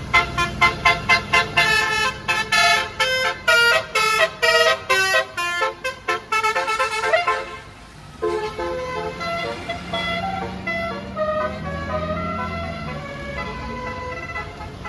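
Basuri telolet bus horn, a set of roof-mounted trumpets, playing a quick staccato tune of short pitched blasts, about three a second, for roughly seven seconds. After a brief dip it plays a softer melodic run of longer notes.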